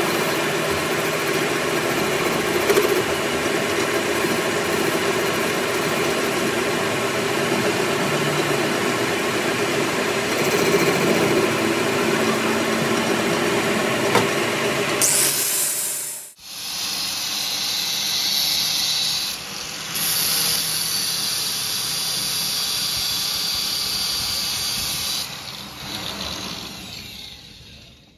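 Metal lathe turning a steel tie-rod ball stud, the cutting tool shaving the ball with a steady machining noise. After a cut about 16 seconds in, the tool squeals at a higher pitch, and the sound fades away near the end as the lathe stops.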